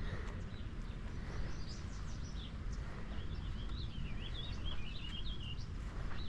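A bird singing: scattered high chirps, then a long warbling phrase starting about three seconds in, over a steady low rumble of outdoor background noise.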